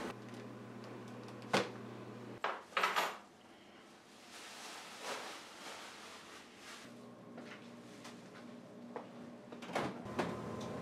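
Quiet household handling sounds: a few short knocks and clatters as shopping is unpacked and set down, then a refrigerator door pulled open near the end, over a faint low hum.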